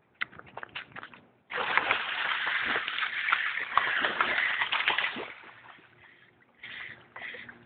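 Morelet's crocodiles thrashing in shallow lagoon water: a few small splashes, then from about a second and a half in a heavy burst of splashing and churning lasting about four seconds that dies away, with two shorter splashes near the end.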